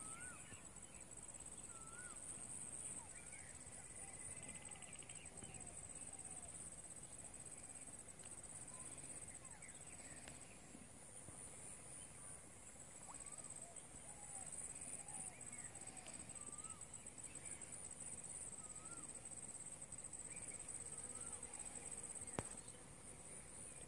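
Faint rural outdoor ambience: a steady high insect drone with scattered short bird chirps, and a single sharp click about 22 seconds in.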